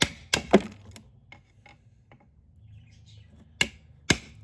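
Hammer blows on a chisel or screwdriver knocking old worn lining off a steel truck drum-brake shoe: a quick run of sharp strikes in the first second, a pause with only a few light clicks, then two more strikes near the end.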